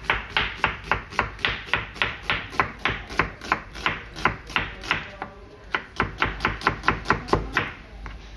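Knife chopping food on a cutting board in quick, even strokes, about five a second, with a brief pause about five seconds in, stopping shortly before the end.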